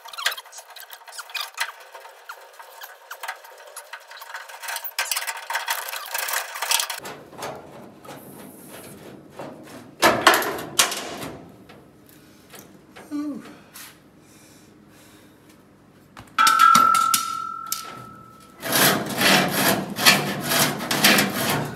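Pneumatic air hammer rattling rapidly against a rusted door-hinge bolt to knock the rust out of its head. Then scattered metal clanks and knocks as the door is pried and worked loose from its hinges, with a cluster of loud knocks near the end.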